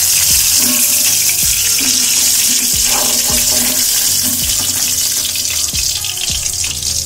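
Hot mustard oil sizzling steadily in a kadai after fried fish pieces are lifted out, with background music and its regular low beat about twice a second.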